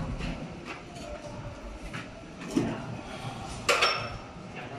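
Scattered knocks and clanks from work on a precast concrete lintel held in a steel lifting jack, over a low steady rumble. The loudest is a sharp clank a little before the end.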